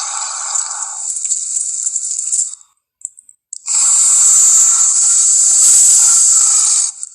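Film creature sound effect: a harsh, rattling hiss. It breaks off about two and a half seconds in, then returns louder for about three seconds after a short gap.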